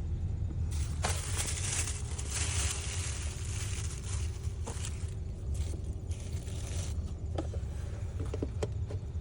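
Car driving, heard from inside the cabin: a steady low road rumble, with a loud hiss that starts about a second in and fades near the end, then a few light clicks.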